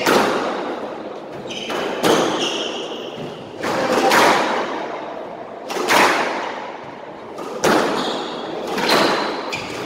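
Squash rally: the ball is struck by the rackets and hits the walls about every one and a half to two seconds, each hit ringing in the enclosed court. Short sneaker squeaks on the wooden floor come between the hits.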